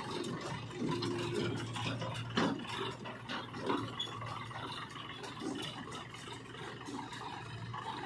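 Sonalika tractor's diesel engine running with a steady low hum as it pulls a loaded trailer through soft mud, with irregular clattering and rattling over it.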